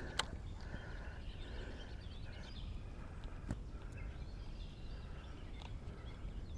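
Faint outdoor ambience: a steady low rumble with scattered bird chirps, and a sharp click about a quarter-second in and another a little past halfway.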